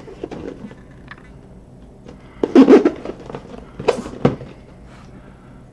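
Cardboard tripod box being handled and turned over in the hands: a loud rubbing scrape about two and a half seconds in, then two sharp knocks around four seconds.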